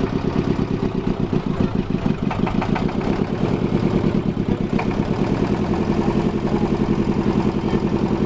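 Engine of a river ferry launch running steadily under way, with a fast, even pulse.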